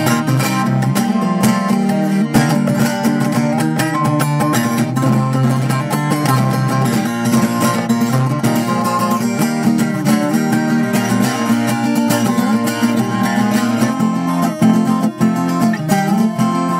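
Background music led by guitar, with quick plucked or strummed notes in a steady rhythm.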